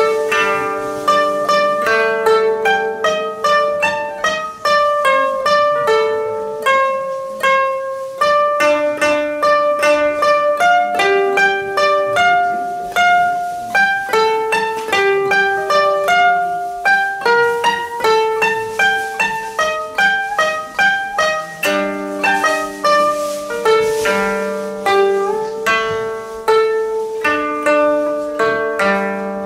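Koto music: a brisk, continuous run of plucked notes, several a second, each ringing briefly.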